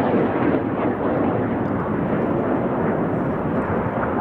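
Red Arrows' BAE Hawk jets flying in display formation: a steady rushing jet noise.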